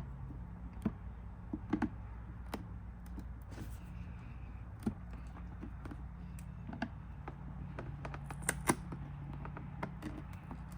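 Scattered light clicks and taps of plastic fairing parts being handled and pried as a vent insert is worked loose from its 3M adhesive tape, over a steady low hum.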